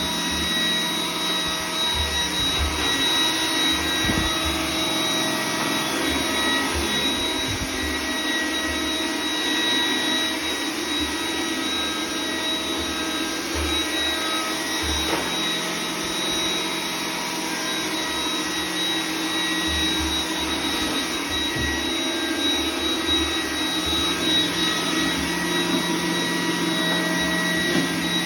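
iRobot Roomba 980 robot vacuum running, its motor and brushes making a steady whirring hum with a high whine, along with irregular low knocks.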